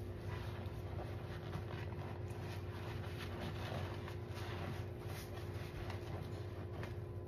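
Soapy sponge being pressed and squeezed in thick suds: soft wet squishing and a fine crackle of foam, over a steady low hum.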